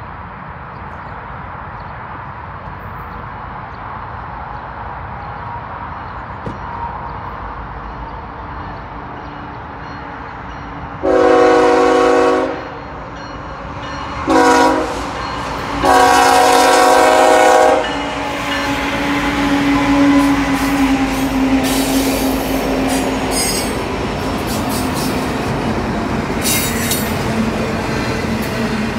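Freight train's diesel locomotive horn sounding three blasts, long, short and long, as it nears a grade crossing. The two leading BNSF diesel locomotives then pass with a steady engine drone, followed by the rattle and clatter of stack-car wheels on the rails.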